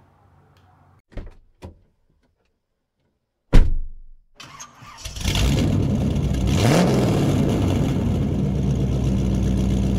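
Outro sound effect: a sharp hit with a falling whoosh, then a car engine starting up and running loudly, its pitch rising briefly about a second after it catches before settling into a steady run.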